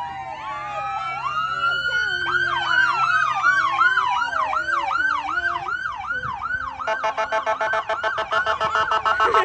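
Electronic sirens on passing emergency vehicles, several overlapping. A slow wail changes to a fast yelp about two seconds in, then to an even faster warble near the end.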